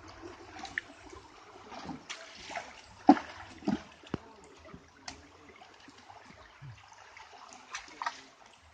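River water flowing and splashing around a raft, with a few sharp splashes about three to five seconds in.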